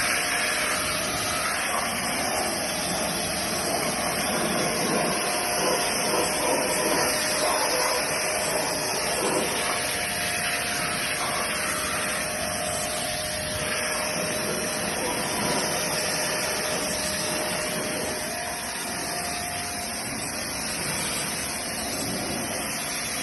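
High-pressure washer spraying through its gun: a steady hiss of water with a constant motor whine underneath.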